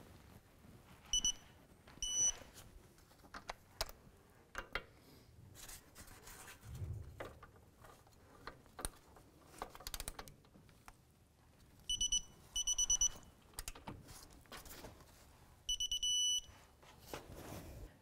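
Electronic torque wrench beeping as the caliper bracket bolts are tightened to 88.5 ft-lb: short beeps as the setting is neared, and one longer beep near the end as the target torque is reached. Scattered clicks and light metal handling sounds from the wrench on the bolts come between the beeps.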